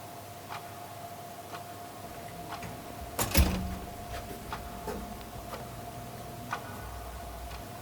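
A clock ticking about once a second over a steady faint tone. About three seconds in comes a loud knock, two quick clicks and a thud, the loudest sound here.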